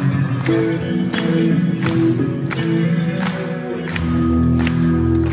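Hard rock band playing live: a steady drum beat, about one hit every 0.7 s, under held chords from the guitars.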